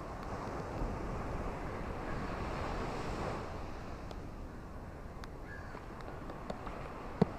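Steady hiss of rain and surf, with a wave swelling and easing off in the first few seconds. A few sharp taps come near the end.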